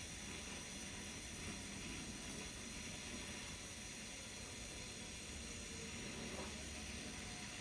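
Brazing torch flame hissing steadily while brazing an access valve onto refrigerator refrigerant piping.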